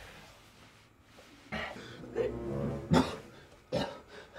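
A man coughing and groaning in strained, choked bursts during a struggle, starting about one and a half seconds in, with a sharp cough about three seconds in and another near the end.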